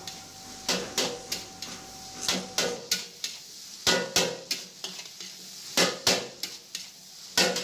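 A metal spatula clanks and scrapes against a large steel wok as fried rice is tossed, in quick clusters of two or three strikes. A light sizzle runs underneath.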